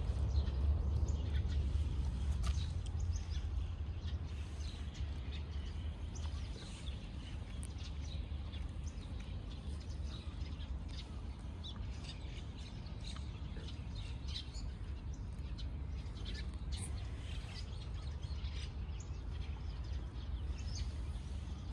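Small birds chirping here and there, over a low steady rumble that is stronger in the first few seconds.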